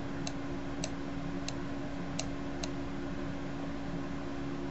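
Computer mouse button clicking as letters are drawn with the mouse: about five short, sharp clicks in the first three seconds, over a steady low hum and hiss.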